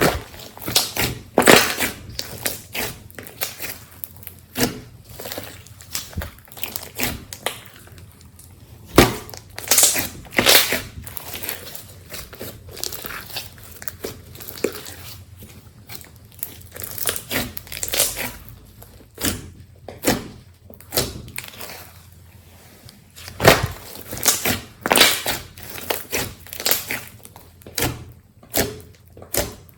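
Slime being squished and kneaded by hand, giving irregular wet crackles and pops, several of them sharper and louder than the rest.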